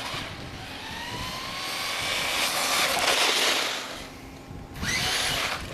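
Traxxas Stampede 4x4 VXL radio-controlled truck's Velineon brushless electric motor whining as it accelerates, rising in pitch and swelling to a peak before fading, then a second short burst near the end.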